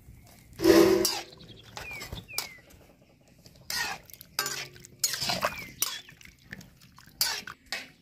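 Metal ladle knocking and scraping against an aluminium wok as boiled taro pieces are stirred in hot water, a string of clanks that ring briefly. The loudest clank comes about a second in.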